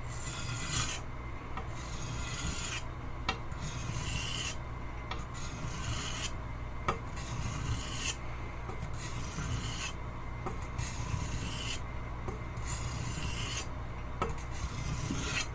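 Steel blade of a 10-inch Wusthof Classic chef's knife scraping across a wet water stone in repeated sharpening strokes, about one every second and a half to two seconds. Extra strokes are being put on the heel of the blade.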